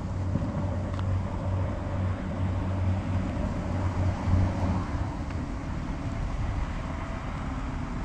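Steady low rumble of outdoor background noise, with no distinct bird calls standing out.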